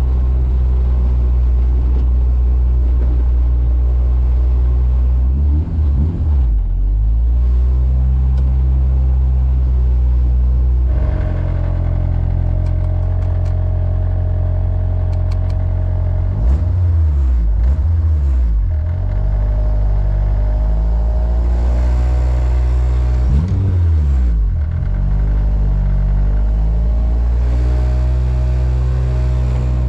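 Turbocharged Honda K24 four-cylinder engine in a Civic hatchback running steadily under way. Three times the engine note dips and climbs again, as at gear changes.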